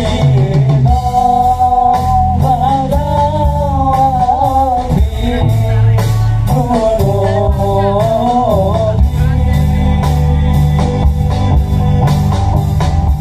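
Live band music through a large outdoor PA sound system. A singer's wavering melody runs over heavy bass and a steady drum beat, and the singing stops about nine seconds in while the band plays on.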